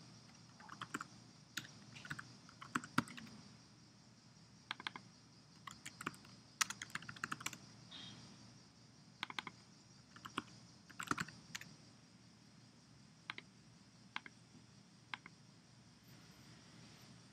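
Computer keyboard keys tapped in irregular short flurries, then single keystrokes about a second apart near the end; faint, over a steady low hiss.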